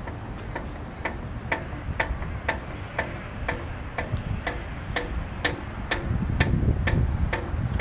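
Sharp, evenly spaced clicks, about two a second, over a low rumble of wind on the microphone that grows louder near the end.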